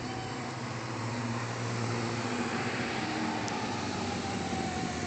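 Sport motorcycle engine running at low speed as the bike approaches, its sound growing gradually louder.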